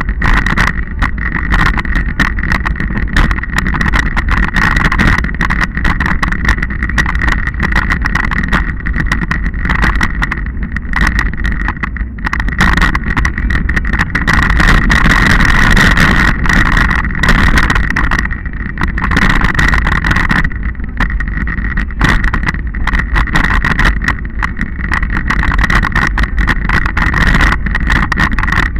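Wind rushing over the microphone of a camera riding along a rough dirt track, with constant rattling and knocking as it jolts over stones and ruts.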